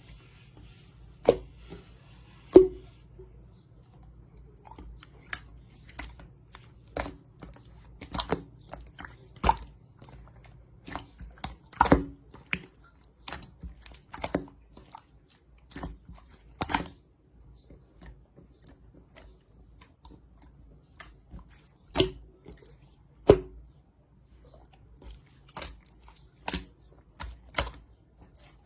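Stretchy clear slime being pressed and pulled by hand, giving irregular sharp clicks and pops, roughly one a second, as trapped air bursts.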